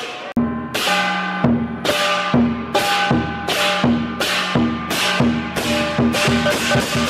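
Chinese dragon-dance percussion: a large Chinese drum and bronze hand cymbals struck together in a steady beat, about two strokes a second, the cymbals ringing after each stroke. The strokes come a little quicker near the end.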